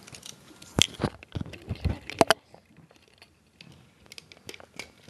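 A pug chewing and biting on her toy: irregular clicks, crunches and soft thuds, bunched in the first half, then a few faint ticks.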